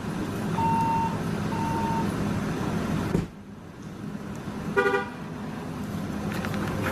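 Vehicle engine running steadily, with two short electronic beeps in the first two seconds; after a sudden drop in level, a brief vehicle horn toot near the middle.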